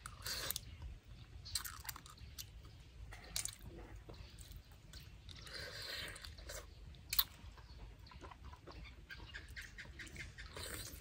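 Close-up chewing and wet mouth sounds of a person eating spicy papaya salad with rice noodles and blood cockles, with irregular smacks and clicks.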